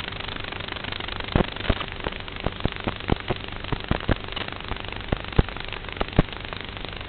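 Steady hiss with irregular sharp crackling clicks and pops, bunched from about a second in to about six seconds in.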